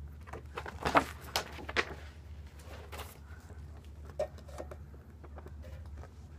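Paper sticker album being handled and its pages turned, with a few short rustles and taps in the first three seconds, then softer handling.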